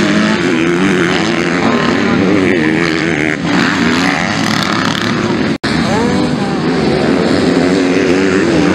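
Motocross dirt bike engines racing, revving hard with the pitch rising and falling continuously.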